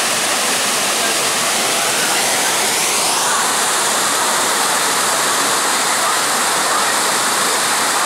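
Waterfall pouring onto rock close by: a steady rush of falling water that fills the sound, its hiss dulling slightly about three seconds in.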